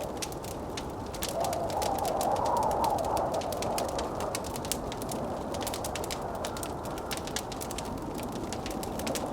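Wood fire crackling with many quick, sharp pops over the steady rush of blizzard wind. From about a second in, the wind swells into a wavering howl, strongest around two to three seconds, then eases back.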